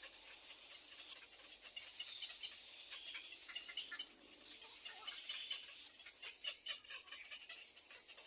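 Nestling birds calling in the nest: a busy run of faint, short, high cheeps and ticks repeated throughout.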